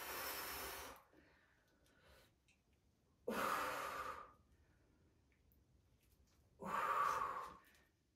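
A woman breathing out hard three times, about every three seconds, each breath lasting about a second: breaths of effort while curling against a stretch band.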